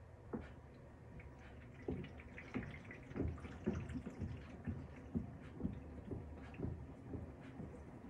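Panasonic top-loading washing machine turning its tub full of wet laundry: a steady low rumble with water dripping and splashing, and a run of soft irregular knocks from about two seconds in.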